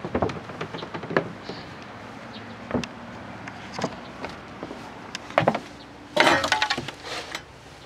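Scattered knocks and clicks, then a louder rattling clatter about six seconds in, as the iron firebox door of a steam launch's boiler is handled.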